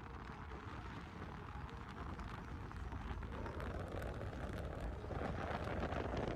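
Steady road and wind noise of a moving car heard from inside, a low rumble with hiss and light crackling.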